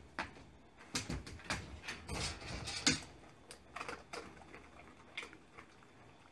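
Wire dog-pen panels rattling and clicking as a Great Pyrenees puppy climbs up onto them with its front paws. A cluster of knocks comes in the first three seconds, then a few scattered clicks.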